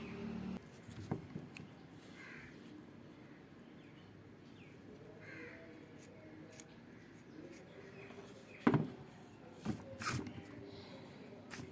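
A bird calling faintly twice over a low background, with a few sharp clicks and knocks, the loudest near the end.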